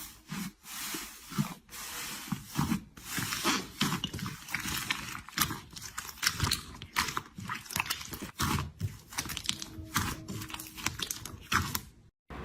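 Slime being squeezed and pressed by hand: a fast, irregular run of wet clicks, pops and squelches.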